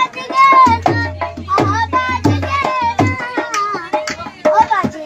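A boy singing a Garhwali folk song in a high voice with long held, wavering notes, over hand-drum accompaniment with sharp strokes and deep bass booms.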